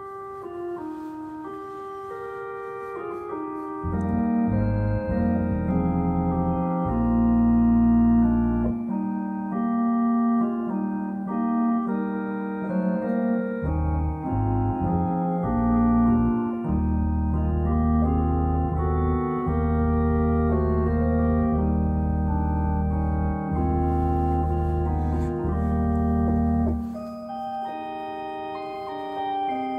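Two-manual electronic home organ playing a slow piece in long held chords. Deep bass notes come in about four seconds in, drop out for a few seconds around the middle, then return and stop near the end.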